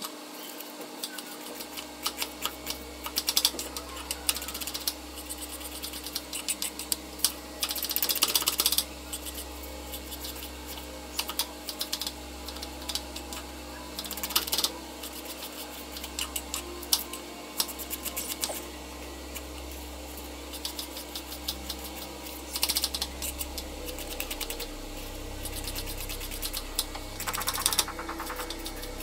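Kitchen knife chopping red onion on a wooden cutting board: quick runs of sharp taps as the blade strikes the board, with denser bursts of rapid chopping every few seconds.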